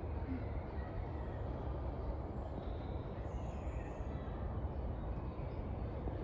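Steady low rumble with a faint hiss of background noise, even throughout, with no distinct events.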